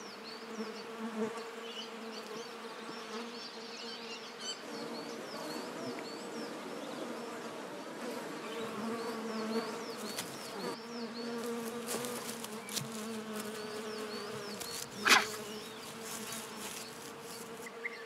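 Flying insects buzzing steadily, with a single sharp, loud sound about fifteen seconds in.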